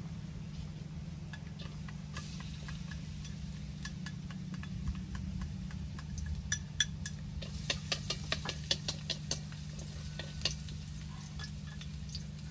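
Oil sizzling in a wok over a wood fire. Sharp crackles and pops crowd in from about halfway through, as something is added to the hot oil, then thin out near the end.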